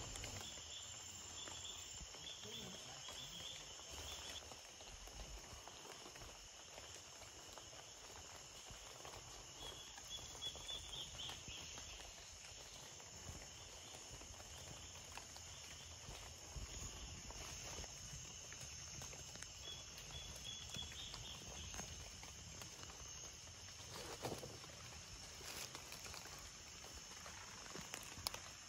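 Quiet tropical rainforest ambience: a steady high insect hum, with short chirping trills a few times and a couple of faint rustling thumps.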